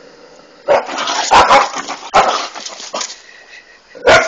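Dog barking in short, loud bursts: several in quick succession over the first three seconds, then one more near the end.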